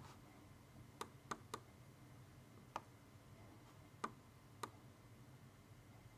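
Six sharp, quiet computer mouse clicks at irregular intervals, three close together about a second in and three more spread out later.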